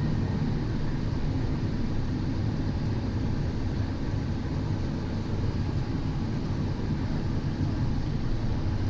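Steady cockpit noise of a twin-turbofan Cessna Citation XL on short final: engine and airflow noise as an even low rumble, with no sudden events.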